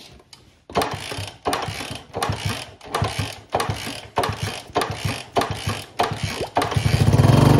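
1964 Honda 50 Super Cub being kicked over with starting fluid sprayed into the bare intake, the carburetor removed, to see whether the engine fires. The kick-starter's ratchet and the turning engine make a sharp clatter about twice a second. Near the end it gets louder and denser.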